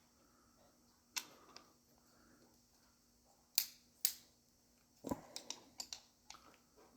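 Sharp clicks and light taps from engine parts being handled while the piston rings are oiled: one click about a second in, two louder ones a little past the middle, then a quick run of small taps.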